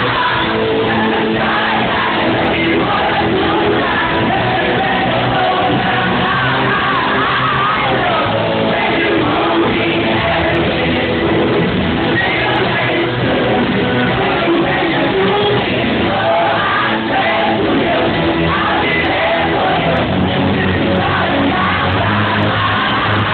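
Live pop-rock band playing loudly in a large hall, a lead singer over full band, with the crowd yelling and shouting.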